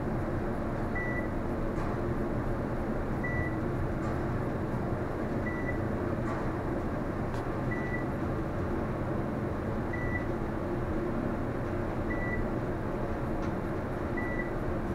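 Westinghouse bottom-drive elevator car travelling down, a steady rumble of the ride inside the car, with a short high beep repeating about every two seconds.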